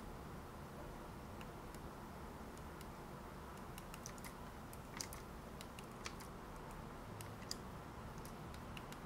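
Faint, scattered clicks of computer keyboard keys being pressed, with a few sharper presses between about five and seven and a half seconds in, over a low steady hiss.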